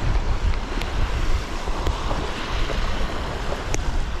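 Strong wind buffeting the microphone in gusts, over the steady wash of lake waves.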